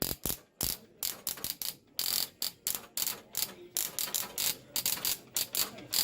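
Rapid, irregular sharp clicks, about three or four a second, from early wireless-telegraph apparatus.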